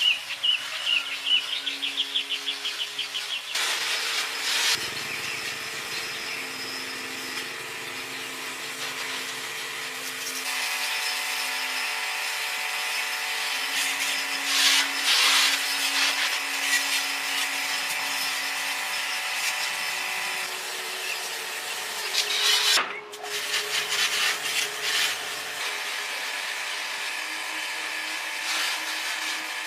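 Hand and power tools working on metal parts in short clips cut together. First come rhythmic scraping strokes, about three a second, then power tools running with a steady whine, with sudden changes between clips.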